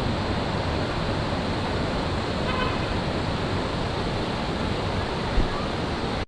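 Steady rushing of a mountain river. A faint short horn sounds about two and a half seconds in, and there is a brief thump about five seconds in.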